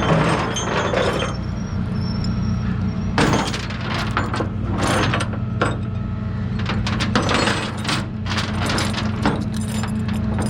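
An engine running steadily, with irregular metallic clicks and clatter on top, like hand tools and parts being handled.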